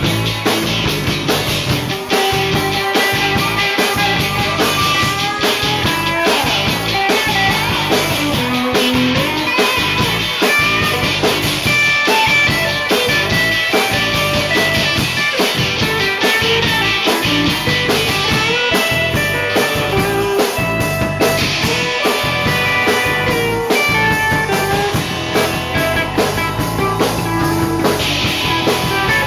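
Live rock band playing: electric guitars over electric bass and a drum kit, at a steady loud level.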